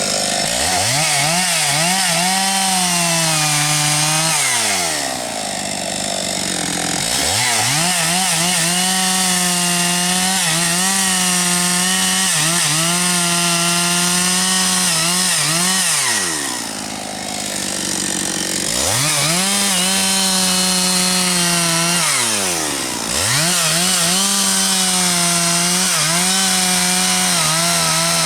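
Husqvarna 272XP two-stroke chainsaw cutting firewood: held at full throttle through the log for several seconds at a time with slight dips in pitch under load, falling back three times between cuts and revving straight up again.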